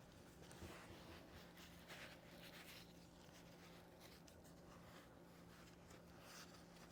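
Faint rustling and rubbing of fabric as a Velcro compression foot wrap is worked onto a foot over a stockinette liner, a few soft scratchy sounds over a low steady hum.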